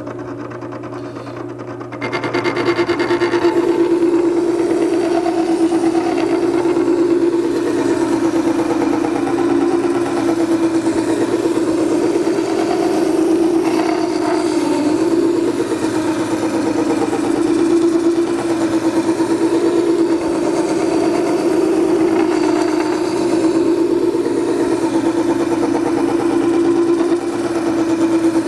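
Makita 98202 horizontal-wheel wet sharpener running. About two seconds in, a steel planer knife in its holding jig is brought down onto the spinning wet waterstone wheel, and it grinds steadily against it from then on.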